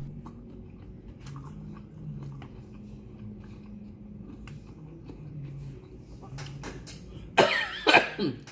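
A person eating sushi: soft chewing with small scattered mouth clicks, then two short, loud throat sounds like coughs near the end.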